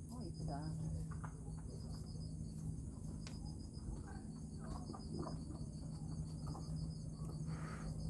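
Crickets chirring steadily: a high, evenly pulsed trill, over a low steady hum.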